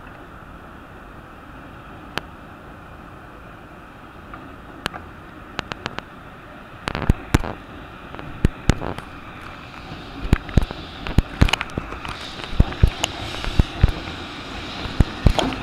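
Wheels of an approaching EF65 electric locomotive hauling a DD55 diesel locomotive clacking over rail joints. The sharp clicks are sparse at first, then from about halfway in come louder and more often, many in pairs, over a steady background hiss.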